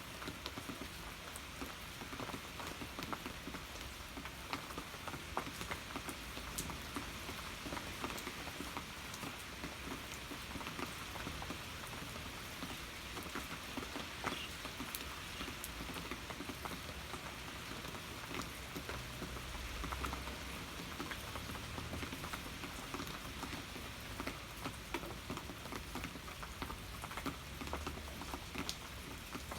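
Steady rain falling, a constant hiss with many separate drops ticking and pattering on a surface.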